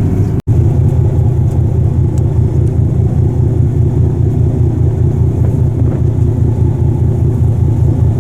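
Icebreaker's engine running steadily: a loud, even low drone with a fast regular pulse, heard on board. The sound cuts out for an instant about half a second in.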